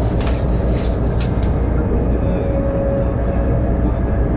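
Steady rumble of a high-speed electric train heard from inside the passenger carriage, with a few brief swishes in the first second and a half.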